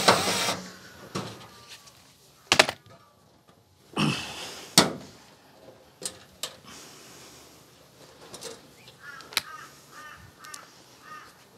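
A cordless drill driving screws into the dryer's sheet-metal panel: a short burst that stops about half a second in and another brief run about four seconds in. Between them come scattered clicks and metallic taps as the screws and panel are handled.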